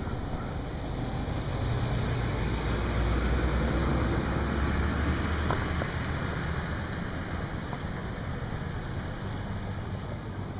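A low engine hum passing by, swelling over the first couple of seconds, loudest a few seconds in, then fading away, over a steady rush of wind noise.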